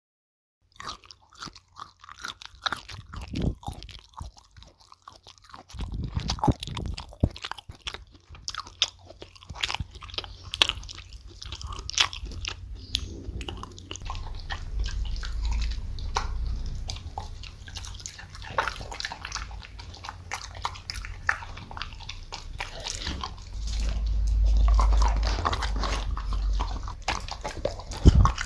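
People chewing with open, crunchy mouth sounds: irregular bites and crunches, starting about a second in.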